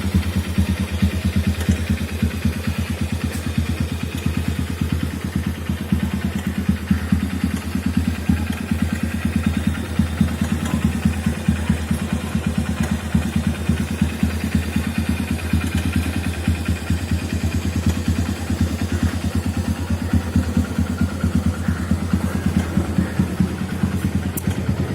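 150cc CBZ single-cylinder motorcycle engine idling steadily through a modified silencer, with a rapid, even run of exhaust pulses.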